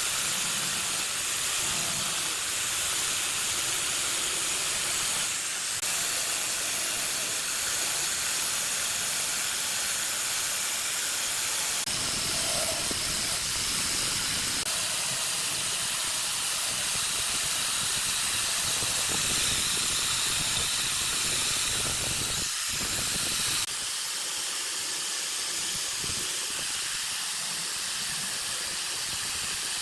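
Spindle sanding drum running, with a steady hiss as a thin strip of wood is pressed against it and its edges are sanded to shape.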